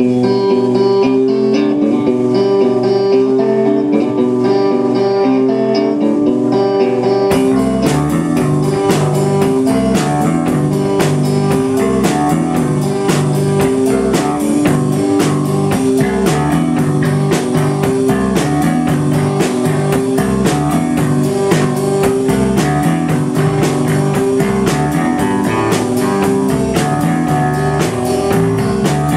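A rock band playing live: a repeating electric guitar riff on its own. About seven seconds in, drums with cymbals and a bass guitar come in, and the full band plays on with a steady beat.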